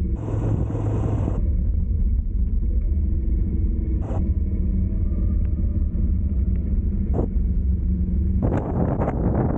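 Steady low rumble of a motor vehicle's engine and road noise while driving, with brief bursts of rushing noise at the start, about four seconds in, and near the end.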